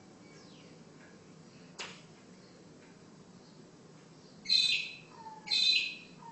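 A bird giving two loud, harsh calls about a second apart near the end, each about half a second long. They follow a single sharp tap about two seconds in.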